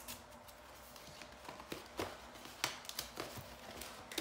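Paper rustling and crackling as a present's wrapping and a card envelope are opened by hand. A scattering of short, crisp crinkles, the loudest about two to three seconds in.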